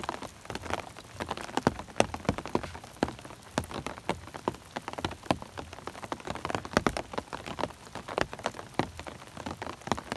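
Rain falling on an umbrella: many sharp, irregular taps of single drops striking the canopy over a steady hiss of rain.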